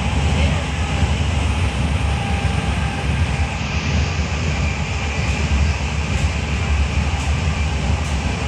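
Class 323 electric multiple unit running at speed, heard from inside the passenger saloon: a steady low rumble with wheel and track noise, and a few faint clicks in the second half.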